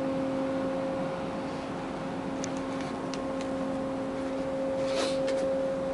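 Ship's machinery running with a steady hum: one constant low tone and its overtone over an even rushing noise, with a few faint ticks.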